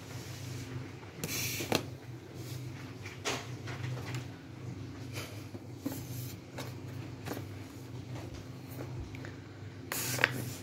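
A small child's hands patting, pressing and rubbing a balloon against a tabletop: scattered light knocks and rubbing noises, with two louder scraping bursts about a second and a half in and near the end.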